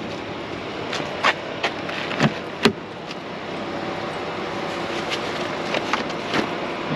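A few sharp clicks and knocks as a Mercedes sedan's door is unlatched and swung open and things are handled inside, the loudest a single crisp click a little under three seconds in, over a steady outdoor background hum.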